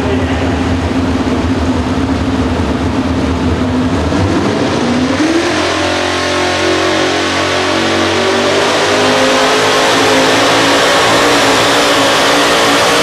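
Pro stock pulling truck's engine idling, then revving up about four to five seconds in and holding high revs as the truck pulls the sled, getting louder toward the end.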